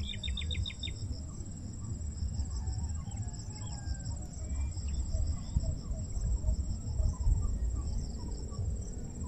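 Insects chirring steadily in a high, pulsing tone, with wind rumbling on the microphone. A quick rattling run of chirps comes in the first second, and short bird calls are scattered throughout.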